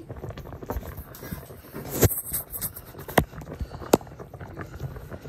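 Pot roast braising in its pot on the stovetop, the liquid bubbling with a steady patter of small pops. Three sharp knocks come about two, three and four seconds in.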